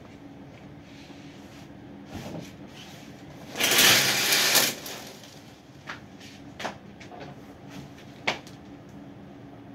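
Shower curtain pulled open along its rod: a rasping slide lasting about a second, the rings scraping on the rail. A few light knocks and clicks follow, over a steady low hum.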